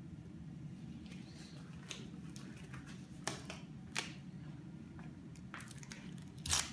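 Sterile gloves being pulled on and handled: a few sharp snaps and soft rustles over a steady low room hum. A louder rustle comes near the end as the sterile package is handled.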